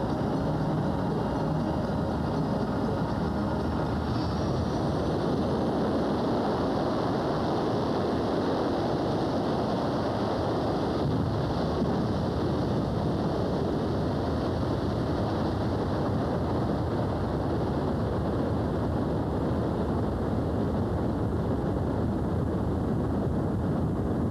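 Pratt & Whitney J58 jet engines of an SR-71 Blackbird running, a steady jet noise at an even level throughout. Music fades out in the first few seconds.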